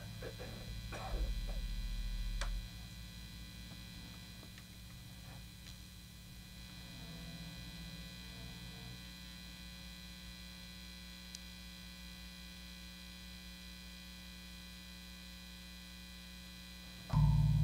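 Steady electrical mains hum and buzz from an amplified bass rig left on between notes. A low note sounds briefly a second or so in, there are a few light clicks, and a loud low thump starts near the end.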